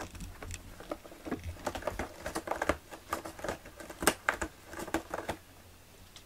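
Cat scratching a sloped corrugated-cardboard scratcher with its front claws: a run of quick, irregular scratching strokes that stop near the end.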